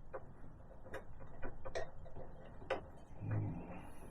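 A few short, sharp clicks of a hand tool working the blade nut on a table saw's arbor as it is checked for tightness, then a dull low thump about three seconds in.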